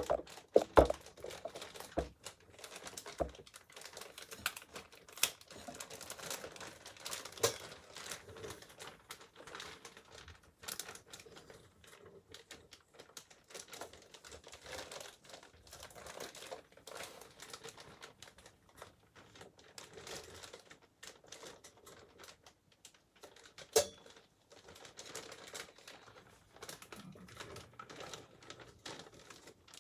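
Packaging crinkling, with irregular small clicks and taps as computer parts are handled, and a few sharper knocks in the first few seconds and one about 24 seconds in.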